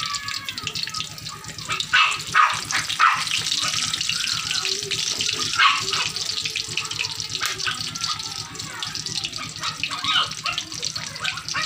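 Breaded pork chop frying in hot oil in a wok: a steady sizzle full of crackles, with a few louder pops between about two and six seconds in.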